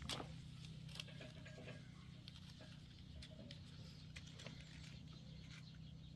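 Faint, scattered small clicks and scratches of matches being handled and struck on a matchbox to light kindling, the sharpest right at the start and about a second in, over a steady low hum.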